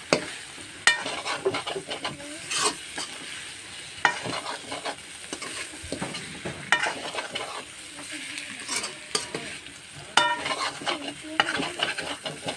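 Chicken with dried roselle leaves frying in a wok with a steady sizzle, while a spatula stirs and scrapes it against the pan in sharp clinks every second or two, some ringing briefly.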